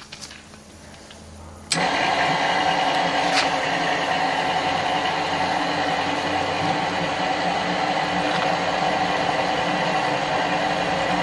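Drill press starting abruptly a little under two seconds in, then running steadily as a twist bit held in a homemade extension rod drills into a steel block.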